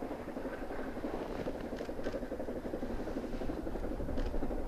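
Narrow-gauge C2 steam locomotive working a train, heard from afar: a steady rush of exhaust and running noise, with a few sharper cracks about two seconds in and near the end.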